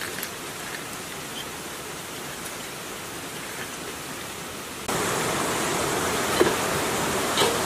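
Steady hiss of outdoor water, stepping up louder about five seconds in, with two light knocks near the end.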